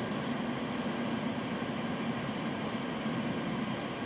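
Steady whirring hum and hiss of an electric kettle heating water from an EcoFlow Delta portable power station under a load of about 1400 watts, the water not yet at the boil.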